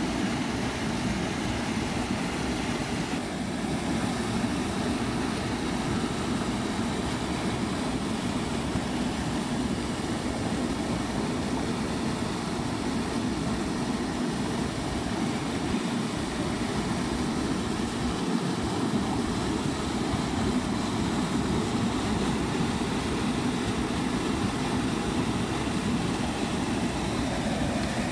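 Steady rushing of fast-flowing rainwater runoff, poured over a small spillway into shallow water and streaming through the shallows.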